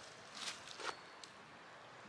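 Feet shifting on dry leaf litter: two soft rustles, about half a second and about a second in.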